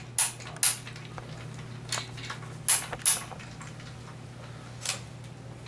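About half a dozen short, sharp clicks and taps over a steady low hum.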